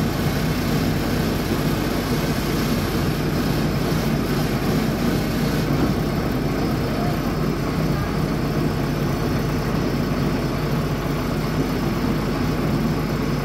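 Engine of a truck-mounted water-well drilling rig running steadily at an even, low hum.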